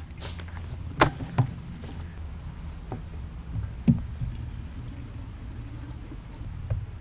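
A plastic gas can being opened and tipped to refuel a chainsaw: a few sharp plastic clicks and knocks about a second in and again near four seconds, over a steady low rumble.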